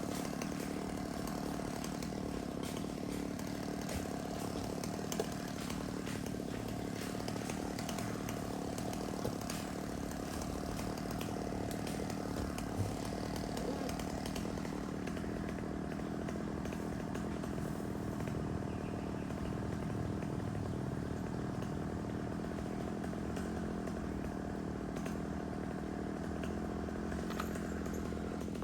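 Chainsaw running steadily without letting up, cutting into the trunk of a kapok tree.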